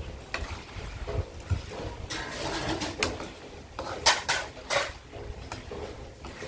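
Metal spatula scraping and clanking against a wok as cubes of pork belly are stirred and fried, the water cooked off and the fat starting to render. There is a stretch of steady scraping, then several sharp clanks about four seconds in.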